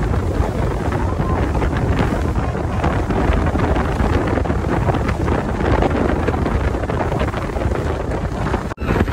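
Wind buffeting the microphone on an open speedboat under way, a steady loud rush with the boat's running noise beneath it. A brief drop cuts it off near the end before it picks up again.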